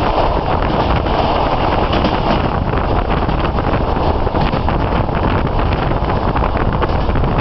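Train running along the rails, a steady loud rumble heard from aboard, with wind noise on the microphone.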